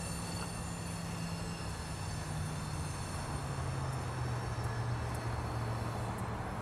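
A distant engine drone: a steady low hum that slowly falls in pitch, over a wash of background noise.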